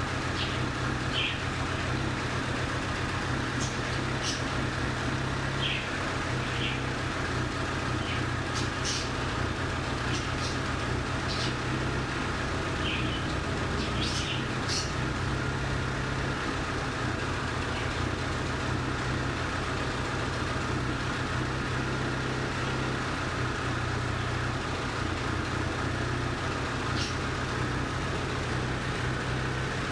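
2008 Hyundai Sonata 2.4-litre four-cylinder petrol engine idling steadily with a cylinder misfire. Short high chirps sound over it now and then.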